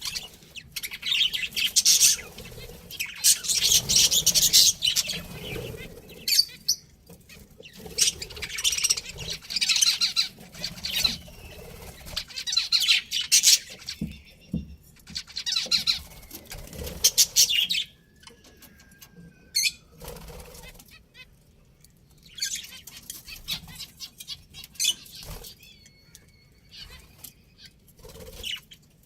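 Budgerigars chattering and chirping in bursts of scratchy, rapid warbling, with a few drawn-out whistles, one of them falling in pitch, in the second half.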